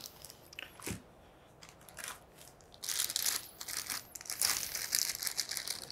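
Plastic packaging bag crinkling as it is handled, with a few faint rustles and a tap in the first half, then denser crinkling from about three seconds in.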